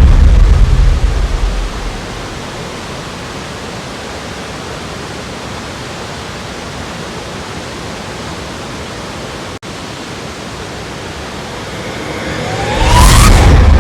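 Waterfall ambience: a steady, even rush of falling water. It swells into a louder, deeper rush at the start, and again for the last second or so. The sound cuts out for an instant about two-thirds of the way through.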